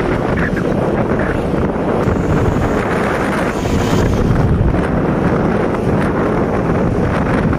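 Heavy wind buffeting the microphone of a moving vehicle, a steady loud rumble with road noise underneath.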